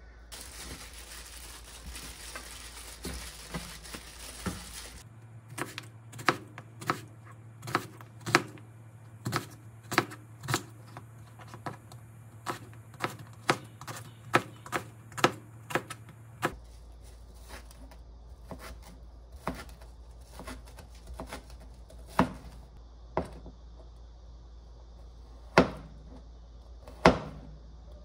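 A few seconds of steady hiss, then a series of sharp knocks or taps, about two a second at first and more widely spaced in the second half.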